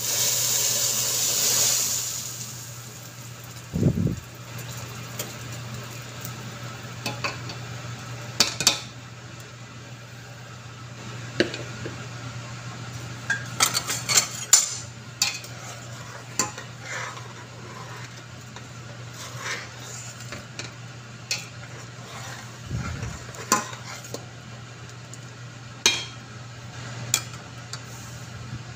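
Hot fried garlic and oil poured from a frying pan into a stainless steel pot of simmering soup, sizzling loudly for about two seconds. After that a utensil stirs and clinks against the pot now and then over a steady low hum.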